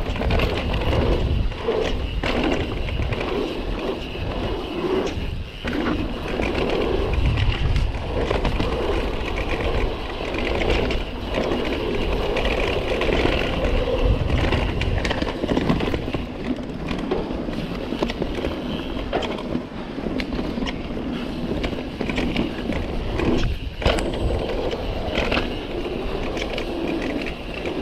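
Guerrilla Gravity MegaTrail mountain bike rolling fast down a dirt singletrack. The tyres run steadily over the dirt, with frequent knocks and rattles from the bike over bumps and roots.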